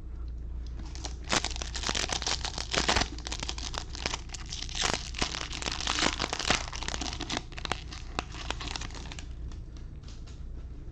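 A baseball card pack's wrapper being torn open and crinkled by hand: a dense crackling from about a second in that thins out near the end.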